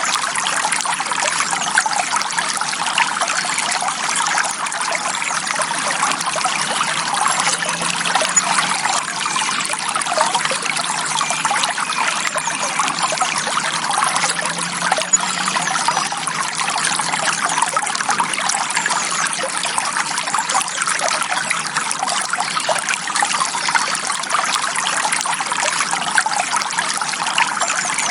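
A shallow forest stream running steadily, water trickling and splashing over stones.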